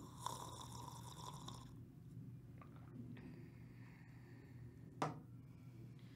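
A slurping sip of tea from a cup, then a single sharp knock about five seconds in as the cup is set down on a wooden table.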